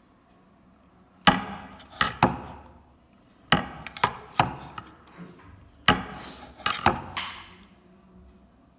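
A series of about ten sharp knocks on wood, coming in irregular clusters of one to four.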